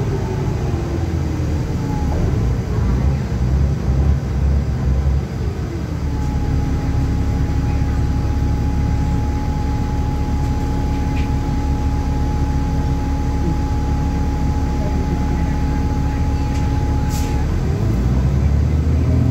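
A New Flyer D40LF city bus's diesel engine and driveline heard from inside the cabin: the pitch winds down as the bus slows, then the engine idles with a steady hum while it stands at the intersection. Near the end comes a brief hiss, and the engine pitch rises again as the bus pulls away.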